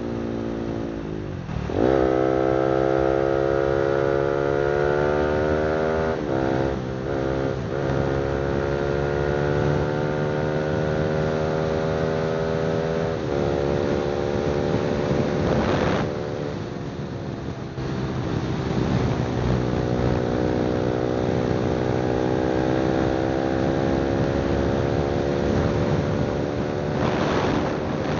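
Honda CBR300R single-cylinder engine running through an aftermarket exhaust while riding. Its pitch climbs slowly, then drops and climbs again several times as gears are changed or the throttle is eased.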